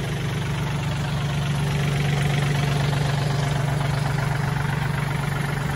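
Kubota tractor's diesel engine idling steadily.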